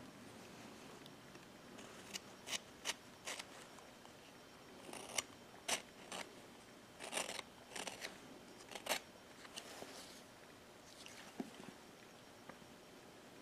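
Small carving knife slicing chips from a wooden figure: a dozen or so short, crisp cuts at irregular intervals, bunched in the middle.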